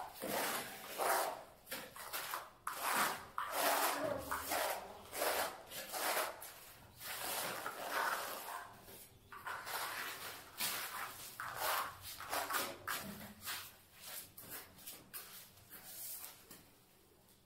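Notched trowel scraping and combing cement-based tile adhesive across a concrete floor, in a long run of uneven strokes about one or two a second.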